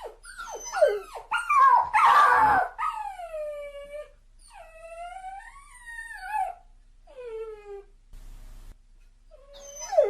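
A dog crying: a run of short falling whimpers, a loud harsh yelp about two seconds in, then long drawn-out whines that waver and slide down in pitch, with a few more short whimpers near the end.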